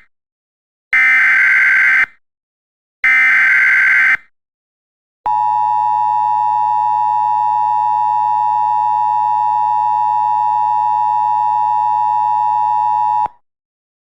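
Emergency Alert System broadcast signal: the warbling data bursts of the SAME header, each about a second long and a second apart, then a long steady alert tone of about eight seconds that cuts off sharply. It marks the start of an emergency weather message.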